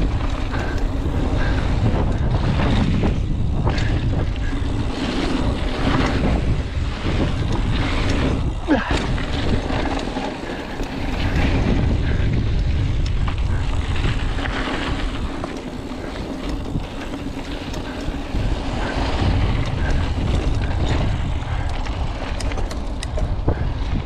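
Wind rushing over the camera microphone and knobby mountain bike tyres rolling fast over dry dirt and gravel, with the bike rattling and clicking over bumps and a sharp knock about nine seconds in.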